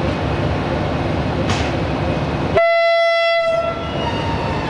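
CFR 060-DA (LDE2100) diesel-electric locomotive running at a standstill, with one short horn blast on a single steady pitch a little after halfway, lasting about a second.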